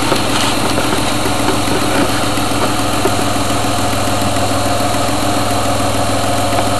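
Truck engine idling steadily with a fast, light ticking: an exhaust leak at the front exhaust manifold, as the owner takes it.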